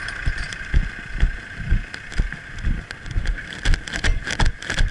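Wind buffeting a helmet camera's microphone in uneven low gusts over a steady high drone. A quick run of sharp crackles comes near the end.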